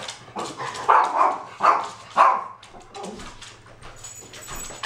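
Small dogs barking at the front door as their owner arrives home: four sharp barks in the first half, then quieter.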